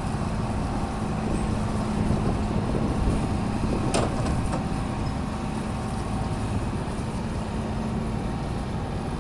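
An engine running steadily: a low drone with an even hum, and one sharp knock about four seconds in.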